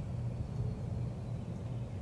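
Steady low outdoor background rumble with no distinct event.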